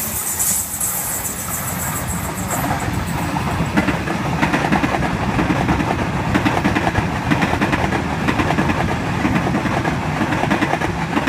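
An OSCAR H-set double-deck electric train passing and rolling away, with steady rolling noise and rapid clicking of wheels over the rail joints.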